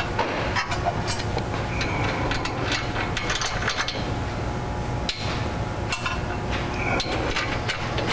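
Scattered metallic clicks and knocks of bolts, washers and hand tools as a steel side step is bolted to its mounting brackets, over a steady low hum.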